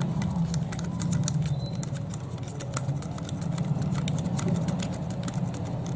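Small irregular clicks and ticks of a GoPro Shorty's metal thumbscrew being turned through the camera's mounting fingers by hand, over a steady low hum.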